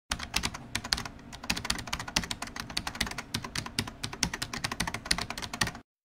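Fast computer-keyboard typing: a rapid, uneven run of key clicks, about eight a second, that stops abruptly just before the end.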